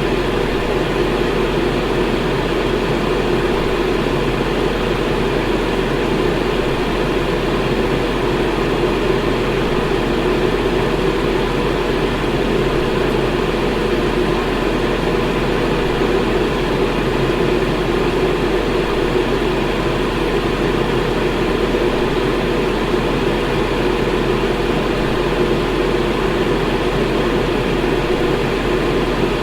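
Electric fan running steadily: an even, unchanging whoosh with a faint steady hum beneath it.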